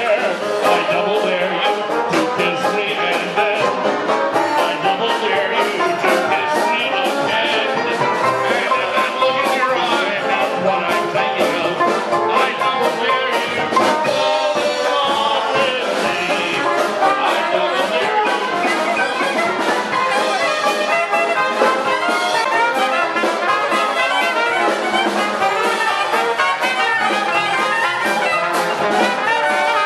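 Live Dixieland jazz band playing, with trumpet and trombone over banjo and drums.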